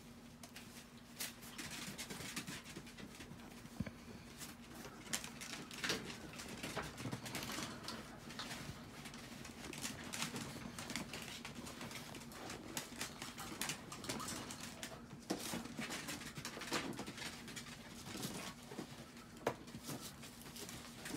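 Chihuahuas' paws and claws pattering and scrabbling on a plastic tarp and in a plastic tray as the dogs play, making frequent short scratches, taps and rustles. A faint steady hum runs underneath.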